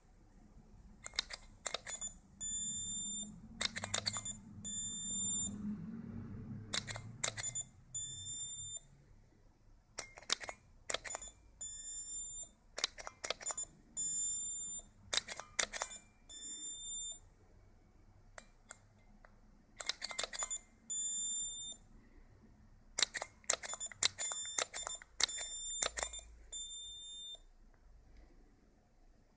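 Canon Speedlite flash units being fired again and again through a DIY flash switch: sharp clicks in quick clusters, each followed by a steady high-pitched whine of about a second as the flash recharges.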